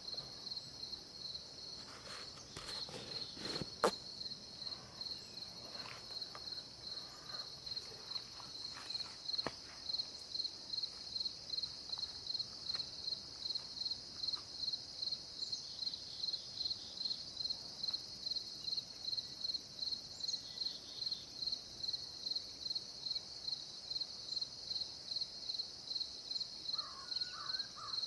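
Insects chirping in a steady, even rhythm of about two pulses a second, a high-pitched chorus across the marsh at dawn. A few sharp clicks or knocks come in the first ten seconds.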